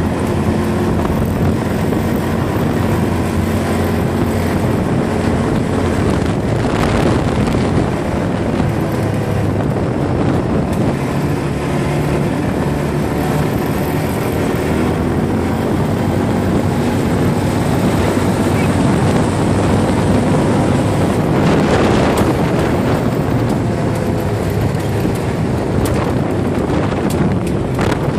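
ATV engine running steadily while riding, with wind buffeting the microphone. The sound swells louder twice.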